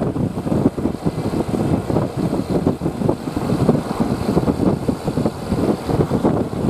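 Vehicle engine running, a rough, uneven rumble, with no horn sounding.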